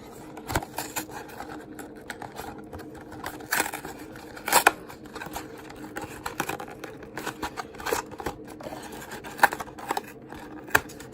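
A cardboard trading-card box being worked open by hand: irregular crackling, tearing and sharp clicks of card stock and wrapping, with the loudest snaps about three and a half, four and a half and nine and a half seconds in, over a faint steady hum.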